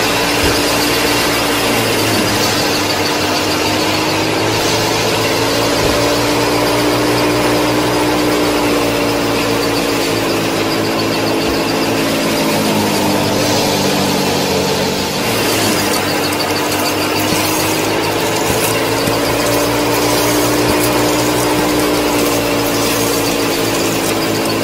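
The small motor of a miniature model wheat thresher running steadily, its whine slowly rising and falling in pitch, with light rattling from the drum in the second half.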